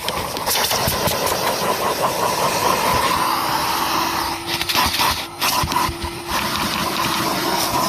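Kerstar KV25-2 twin-motor commercial vacuum cleaner running with a steady whine while its hose sucks, broken by brief irregular knocks and rattles.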